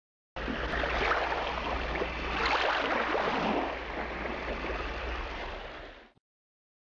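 Intro-logo sound effect: a loud rushing noise over a low hum, swelling twice, that starts suddenly and cuts off after about six seconds.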